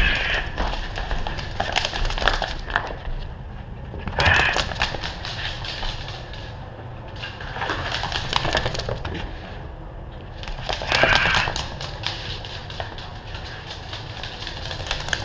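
Miniature dachshund's claws clicking and skittering on a hardwood floor as it dashes about, in dense runs of quick clicks with louder flurries about every three to four seconds.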